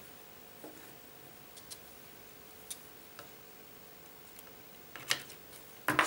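Quiet room with sparse faint clicks and taps of small tools and camera parts being handled on a table, and two sharper clicks near the end.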